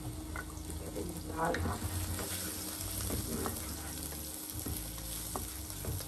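Chopped garlic sizzling in oil in a non-stick frying pan, stirred with a wooden spatula, with light clicks of the spatula against the pan.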